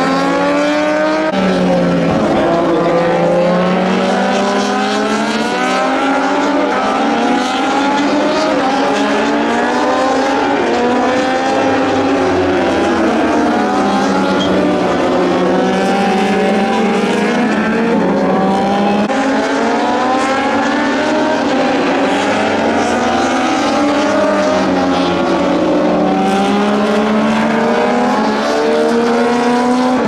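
Several Moto2 race bikes, with Triumph 765 cc three-cylinder engines, running hard on the circuit. Their engine notes climb through the gears and fall away as they pass, many of them overlapping at once.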